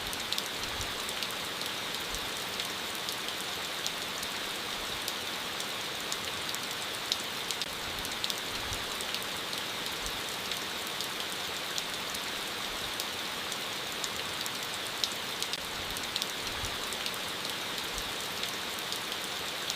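Steady rainfall, a constant hiss with many separate drops ticking on a surface throughout.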